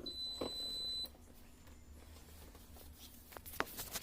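A laptop gives a single high, steady beep about a second long, then a few sharp clicks and taps near the end.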